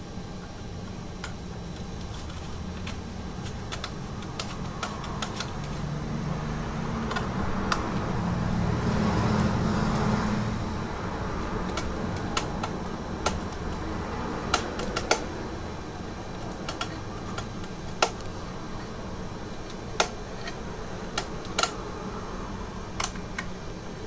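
Small sharp metal clicks and ticks as a Phillips screwdriver turns the screws of an iMac's RAM access door and the door is handled, scattered irregularly over a steady low hum. A swell of rubbing, handling noise comes about eight to eleven seconds in.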